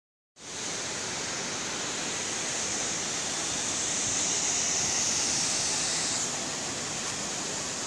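Steady rushing hiss of falling water from large terraced cascade fountains, easing slightly about six seconds in.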